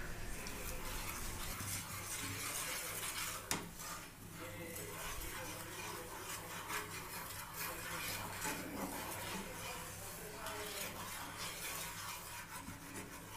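Wooden spatula stirring and scraping red spice paste around a frying pan of hot, foaming butter and oil, over a steady sizzle. There is one sharp knock of the spatula against the pan about three and a half seconds in.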